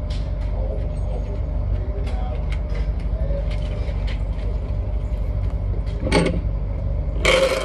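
A steady low rumble with scattered light clicks and ticks. About six seconds in, and more loudly near the end, comes the clatter and rustle of a cardboard ammunition box being handled on the shooting bench.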